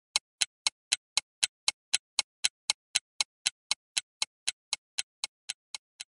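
Countdown-timer ticking sound effect, like a clock: steady sharp ticks about four a second, getting slightly softer toward the end.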